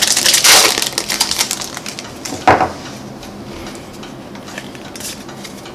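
Foil wrapper of a Pokémon booster pack crinkling as it is torn open, with a last short rustle about two and a half seconds in, then faint clicks of cards being handled.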